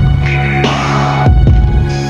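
Background music: a low sustained drone under a throbbing bass, with a deep thump about two-thirds of the way through and swelling hiss-like washes.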